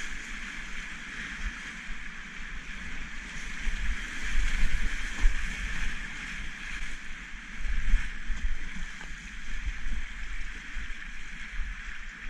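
Close-up rush of river rapids, a steady hiss of whitewater around a kayak, with low rumbling buffets that swell about four to five and eight seconds in.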